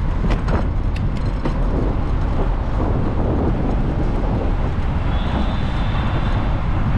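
Steady wind rush on the microphone and road noise from a bicycle riding along a city bike lane, with car traffic running alongside. A few short clicks in the first second or so, and a faint high tone about five seconds in.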